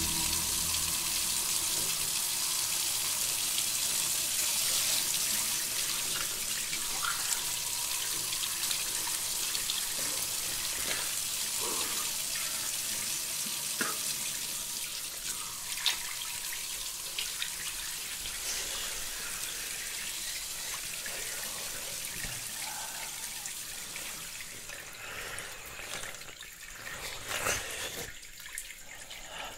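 Bathroom sink tap running, a steady stream of water pouring into the basin, with short splashes as hands are washed under it. The flow grows quieter near the end.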